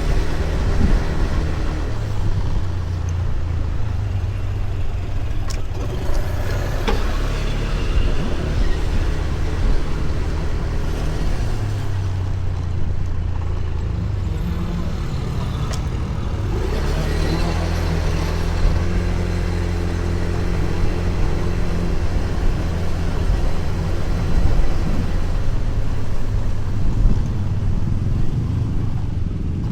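Honda BeAT Street scooter's small single-cylinder engine running while riding, its note shifting up and down with speed several times, over a steady rushing road noise.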